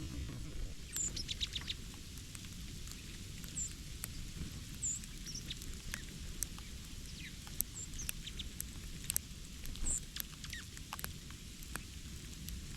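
Small birds giving short, high chirps every second or so, with scattered light taps and clicks, over a low steady rumble.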